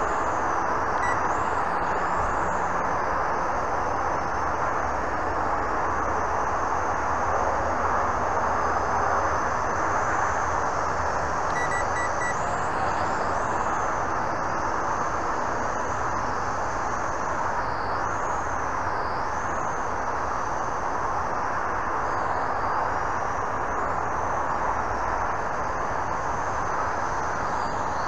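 Visuo X809HW quadcopter's motors and propellers running in flight: a steady buzz with a thin high whine that rises and falls in pitch as the throttle changes, dipping sharply a few times.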